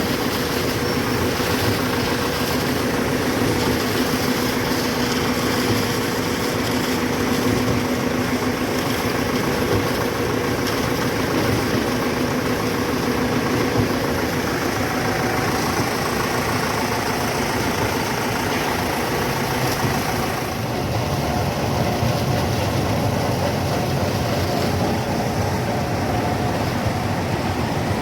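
Heavy diesel construction machinery running steadily, a dense drone with a steady hum. The sound shifts slightly, losing some of its hiss, about twenty seconds in.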